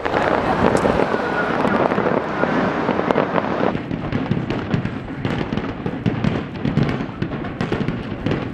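Aerial fireworks shells bursting in a dense barrage, a rapid run of bangs and crackles.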